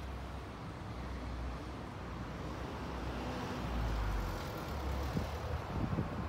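Outdoor background rumble: wind buffeting the microphone in uneven low gusts, with a few soft bumps near the end.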